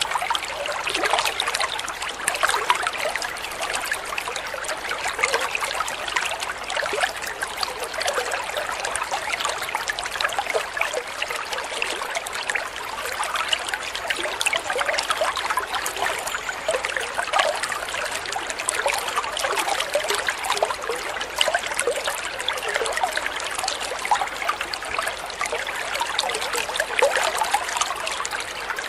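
Steady trickling and gurgling of running liquid, with fine crackles throughout and no pauses.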